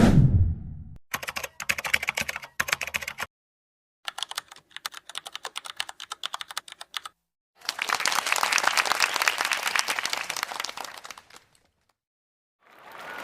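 A string of separate sound effects. First a short low impact that falls in pitch. Then two runs of rapid computer keyboard typing, with a gap between them, and then a denser, steadier clatter of clicks that stops a few seconds before the end.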